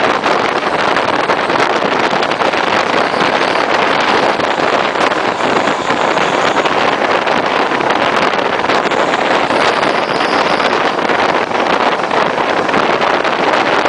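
Regional passenger train running at speed, heard from an open carriage window: a loud, steady rush of wind over the microphone and train noise, with faint short clicks throughout.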